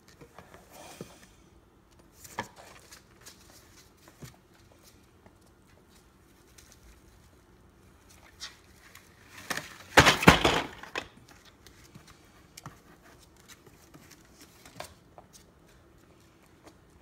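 Scattered light knocks and clicks of wooden Jenga blocks being nudged about by a ferret, with a louder clatter of blocks lasting about a second near the middle.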